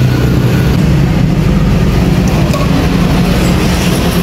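Steady low engine hum of street traffic, loud and continuous.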